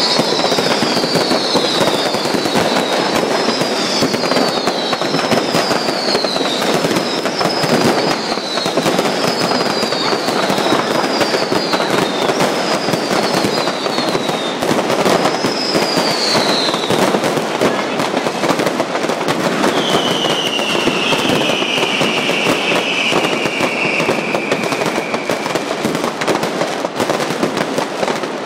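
Fireworks crackling and popping nonstop over a burning falla monument. A run of short whistles falling in pitch, roughly one a second, sounds through the first half, and one longer falling whistle comes later.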